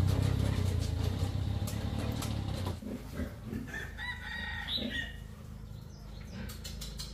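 Engine of a three-wheeled motor cargo tricycle running as it pulls away, a low rumble that cuts off about two and a half seconds in. Then a rooster crows once in the background.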